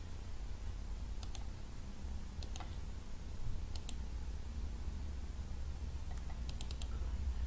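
Computer mouse clicking in small quick groups, about four times, the last a run of four rapid clicks near the end, over a low steady hum.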